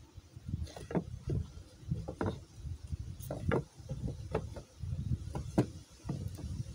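Paintbrush strokes spreading boiled linseed oil over charred fir boards: an irregular run of short scraping swishes, about two or three a second.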